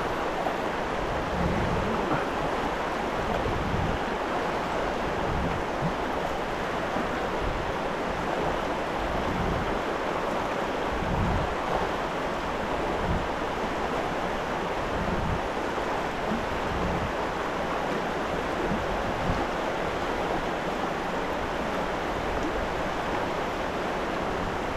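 River water rushing steadily in a continuous hiss, with uneven low gusts of wind buffeting the microphone.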